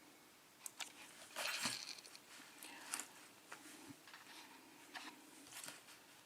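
Faint scattered clicks and soft rustling from handling the disassembled euro lock cylinder and its small parts.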